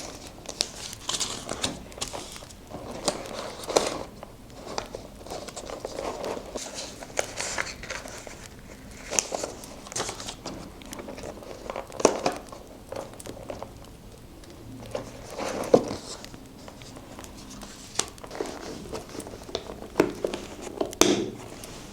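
Paper rustling and crinkling as scrapbook materials are handled, with scattered sharp clicks and taps at irregular intervals.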